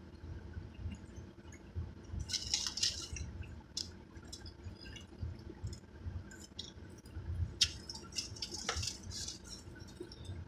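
Close-up wet chewing and lip smacking while eating fried chicken wings, in irregular clusters of small crackles and smacks over a steady low rumble.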